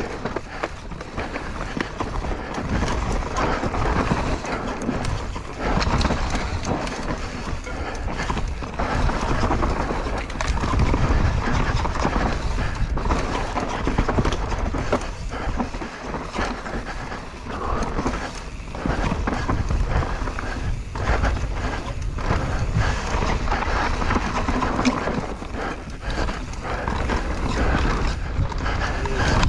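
Mountain bike ridden fast down a rough dirt singletrack: tyres running over loose dirt and roots, with frequent knocks and rattles from the bike over bumps.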